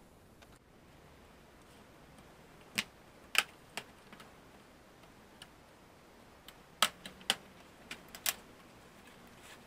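Plastic snap clips on the bottom case of a Dell Chromebook 11 3180 popping loose as the case is pried off: a scattered series of sharp clicks in two clusters, about three seconds in and again around seven to eight seconds in.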